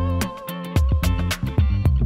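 Background music with a guitar melody over a steady beat.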